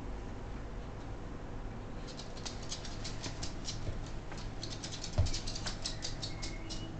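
Miniature bull terrier's claws clicking on a hard floor as it walks about, in quick irregular runs from about two seconds in, with one dull thump about five seconds in.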